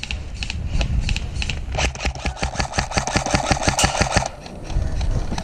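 Airsoft electric rifle firing: a few spaced single shots, then, about two seconds in, a rapid full-auto burst of about two and a half seconds, its gearbox clattering over the whine of the motor, before it cuts off.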